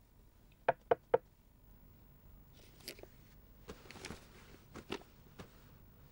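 Three quick knocks on a wooden door just under a second in. Then come faint paper rustling and a few soft bumps as sheets of paper are handled on a bed.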